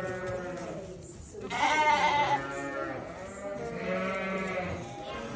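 Wether lambs bleating: a bleat fading out about a second in, a loud one about a second and a half in, and a longer one near the end.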